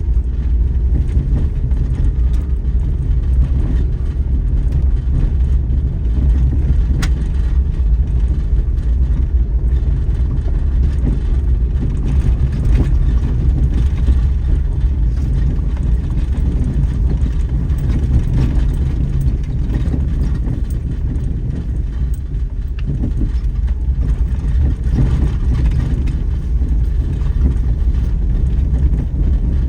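Daihatsu Terios Kid kei SUV driving, a steady low rumble of engine and road noise, with a sharp tick about seven seconds in.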